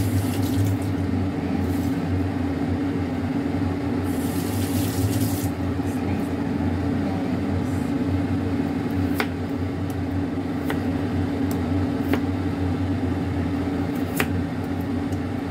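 Kitchen knife cutting peeled raw potatoes on a cutting board: several sharp clicks of the blade meeting the board in the second half. Under it a steady low hum runs throughout, with a brief hiss about four seconds in.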